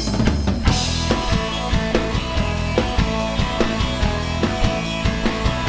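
Rock band playing an instrumental passage: full drum kit with steady kick and snare hits and quick cymbal ticks over bass and guitar, the whole band coming in sharply right after a held sung note.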